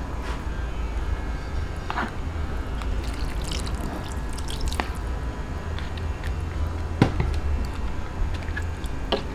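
Broth poured from a plastic jug into a pan of tomato-stewed milkfish, liquid splashing and trickling into the stew, with a few sharp knocks of the spoon against the pan, the loudest about seven seconds in. A steady low hum runs underneath.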